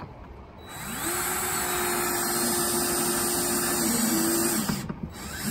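Cordless drill driving a safety screw through a metal gate latch into the wood. The motor spins up about a second in, runs steadily for about four seconds, drops a little in pitch briefly near the end, and stops.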